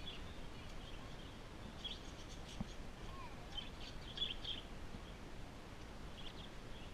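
Budgerigars (parakeets) twittering in short, faint clusters of high chirps every second or two, over a steady outdoor background hiss.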